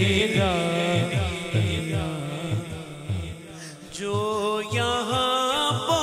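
A male naat reciter singing solo into a microphone in long, melismatic, gliding notes, over a steady low rhythmic pulse. His voice drops away briefly about three and a half seconds in, then returns on a new held phrase.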